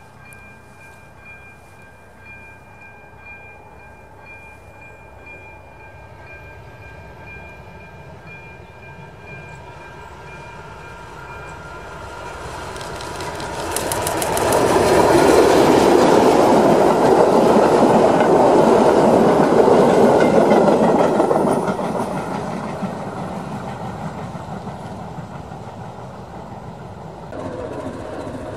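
ČSD T 478.3 'goggles' diesel locomotive hauling passenger coaches, approaching and passing: its engine and wheels grow louder, are loudest for about seven seconds with clicks over the rail joints, then fade away. Near the end the sound cuts abruptly to a different, quieter scene.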